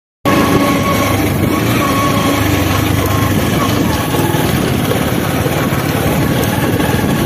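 Bajaj motorcycle engine running steadily while being ridden, buried under a loud, dense rushing noise of the ride.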